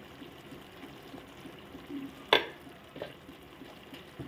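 A metal spoon knocks sharply once against the cooking pan about two seconds in, with a fainter knock a second later, over a faint background from the pan on the stove.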